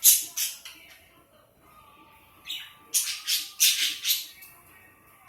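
A pet bird squawking in short, harsh bursts: a quick run of three right at the start, then another run of about five between roughly two and a half and four seconds in.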